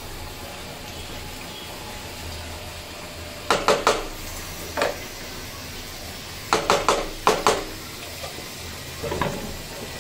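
Wooden spoon stirring rice and knocking against the rim of a metal pan in quick groups of taps, over a steady hiss. Near the end a glass lid is set on the pan with a short clatter.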